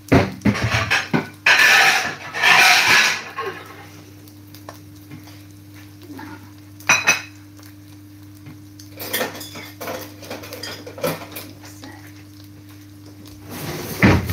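A ceramic plate and cutlery clattering as a plate is taken out and set down on a kitchen counter, with scattered knocks and two longer scraping rattles near the start. A steady low hum runs underneath.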